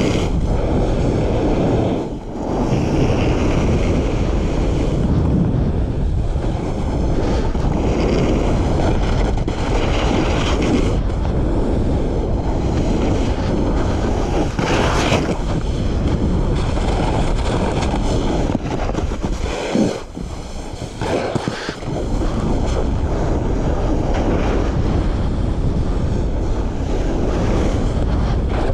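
Wind rushing over the microphone of a body-worn camera as a splitboard slides and carves over wind-packed snow, a steady loud hiss. It drops back briefly about two seconds in and again around twenty seconds in.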